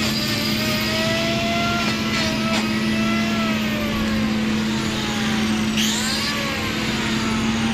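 Hoof-trimming grinder running on a cow's hoof, its motor pitch sagging and picking up again as it cuts, with a short gritty grinding burst about six seconds in. A steady electric hum runs underneath.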